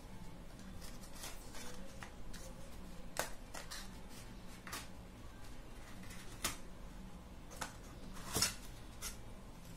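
Handling of a small cardboard box and paper card being opened: scattered light taps, scrapes and rustles, with the loudest knock about eight seconds in, over a faint steady low hum.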